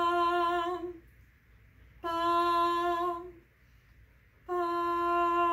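A woman's voice singing wordlessly, unaccompanied: three long held notes on the same pitch, separated by short pauses, ending a wordless chant.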